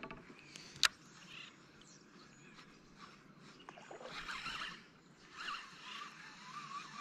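A faint surface splash from a bass striking a topwater frog lure (a blowup), a few seconds in, after a sharp click about a second in.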